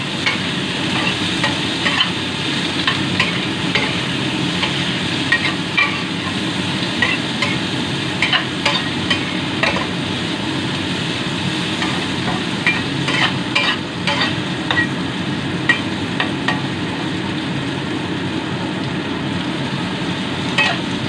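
Salted pork belly and garlic leaves sizzling in hot oil in a pan while a spatula stirs them, with frequent short scrapes and taps of the spatula against the pan.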